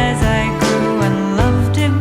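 Music: a song's melody line over held bass notes.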